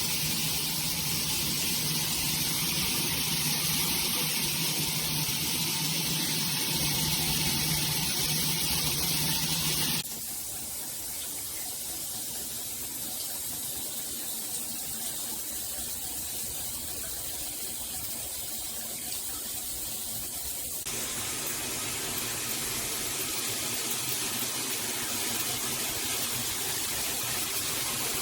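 Water spraying steadily from a filtered shower head, a continuous hiss of running water that changes abruptly about ten seconds in and again about twenty seconds in.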